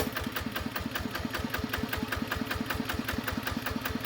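A small engine running at a steady pace, with evenly spaced knocks at about nine a second. A sharp click sounds right at the start.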